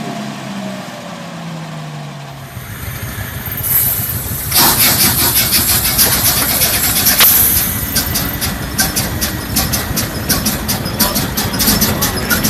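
A large engine starting: a low rumble builds, a loud rush of noise comes in about four seconds in, and the engine then runs with a regular beat that quickens.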